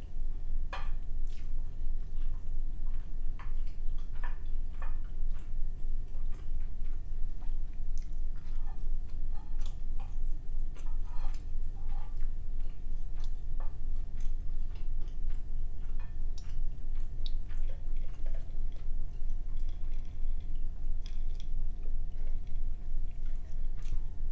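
Close-miked chewing and mouth sounds of someone eating, with many scattered short clicks and smacks, over a steady low hum.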